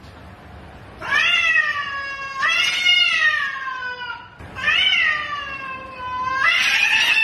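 A cat meowing in four long, drawn-out calls one after another, each rising and then falling in pitch, starting about a second in.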